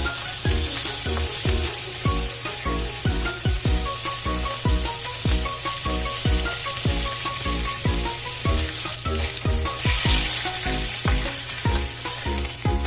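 Background music with a steady drum beat of about two a second and a short-note melody, over the steady sizzle of food frying in a pan; the sizzle grows briefly brighter about nine seconds in.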